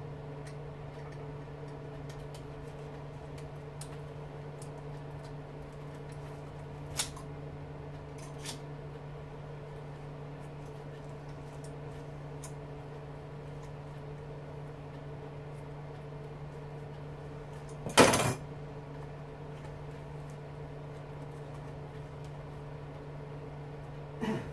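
Small pieces of scrap metal clicking as they are handled, with a louder metallic clatter about 18 seconds in, over a steady low hum.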